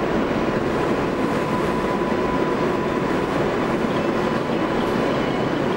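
Kawasaki R143 subway car running on the track, heard from inside the car: a steady rumble and rush of wheels on rail, with a faint steady high tone in the first half.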